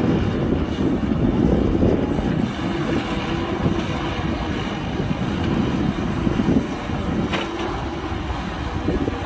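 Heavy diesel engine of an excavator running steadily under work, with a short knock about seven seconds in.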